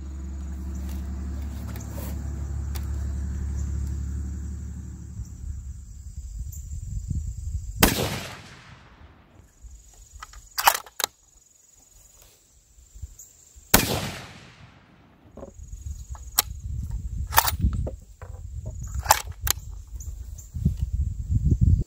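Two loud rifle shots about 8 and 14 seconds in, each ringing out with a long echo, among many small metallic clicks and knocks of a bolt-action rifle being handled. A low rumble fills the first few seconds.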